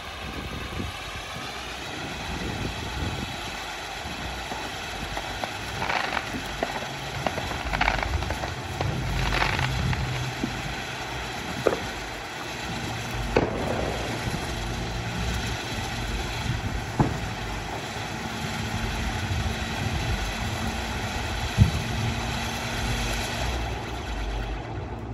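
Brothers 'Spring Fling' spinner firework burning: a steady loud hiss of spraying sparks with a few brief surges and scattered sharp pops. The hiss cuts off near the end as the spinner burns out, and a low steady hum runs underneath.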